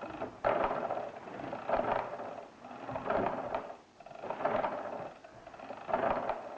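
Arithmometer mechanical calculator being worked, its gears and crank clattering in about five repeated bursts.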